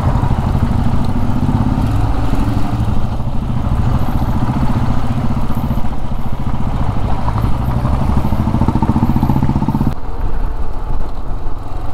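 Motorcycle engine running steadily under way, heard from the rider's microphone with heavy wind rumble. The engine note drops away about ten seconds in.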